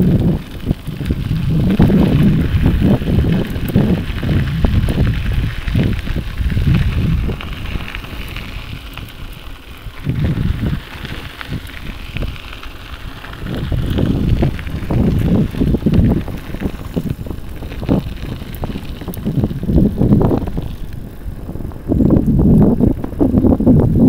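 Wind buffeting the microphone outdoors: a loud low rumble that swells and eases in gusts, dropping back for a few seconds around the middle before rising again.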